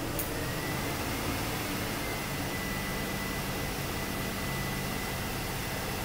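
Car engine running steadily at raised revs, about 2,000 RPM, with a faint, steady high whine over it. The engine is making only about 8 PSI of fuel pressure, which the mechanic puts down, probably, to a clogged fuel filter or a failing fuel pump.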